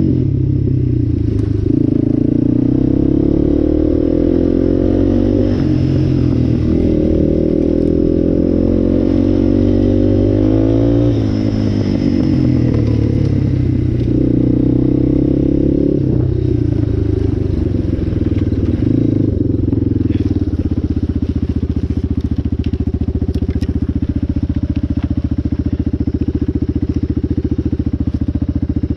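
Yamaha Raptor 700 ATV's single-cylinder four-stroke engine on a trail ride, its revs rising and falling repeatedly as the throttle is worked. For roughly the last ten seconds it settles into a steady low-rev run.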